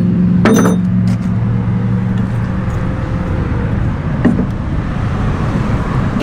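Vehicle engine idling steadily under outdoor traffic noise, with a ringing metal clank about half a second in and a lighter knock near four seconds, as a hitch ball mount is tried in the tow receiver.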